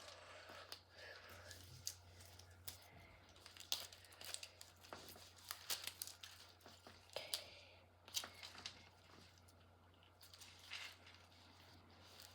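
Faint crinkling and tearing of toy packaging being opened by hand, with scattered small clicks and taps.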